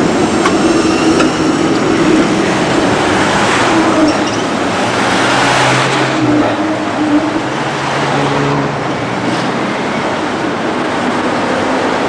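A tram passing close by amid street traffic, a steady rumble of wheels and running vehicles. The noise swells from about four to six seconds in as a vehicle goes past.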